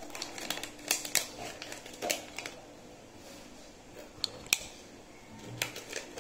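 Crinkling and sharp clicks of a pregnancy test's wrapper being handled and opened, in irregular bursts with the sharpest click about four and a half seconds in.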